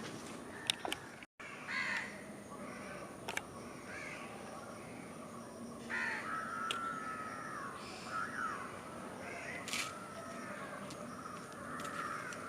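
Crows cawing repeatedly, with about six harsh calls spread through the stretch, one of them a longer drawn-out call about six seconds in. A few sharp clicks sound in between.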